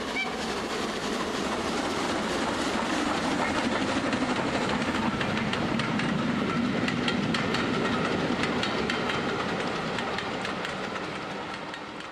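A train running along the track, the wheels clicking quickly and unevenly over the rail joints in a steady run that dies away near the end.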